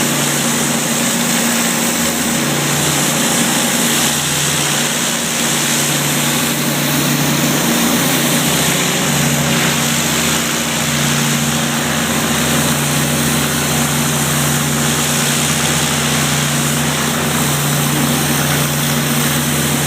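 Pressure washer running steadily: the even hum of its small engine under the hiss of the high-pressure spray.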